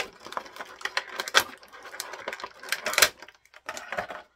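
Clear plastic blister packaging crinkling and crackling as an action figure is worked free of it, a run of irregular sharp snaps with two louder ones about a second and a half and three seconds in.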